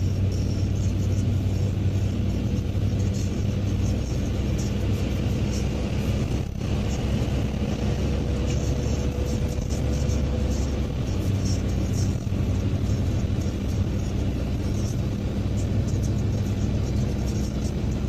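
Car driving on a wet road, heard from inside the cabin: a steady engine and tyre rumble.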